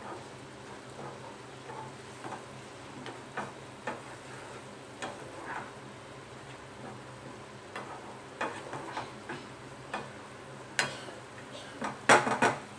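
Wooden spatula stirring and scraping a thick onion masala in a stainless steel frying pan, the masala sizzling as the little water added to it cooks off. A few sharper knocks come near the end.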